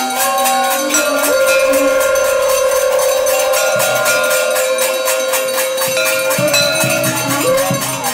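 Conch shells blown in long held tones, several at once at slightly different pitches, over quick, steady strokes of a hand-held gong and bells.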